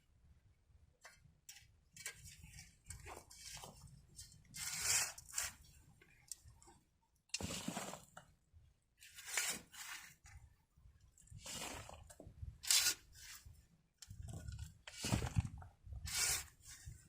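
Irregular crunching and scraping strokes of hand work in rocky garden dirt and brush, one every second or two, with a few light clicks in the first couple of seconds.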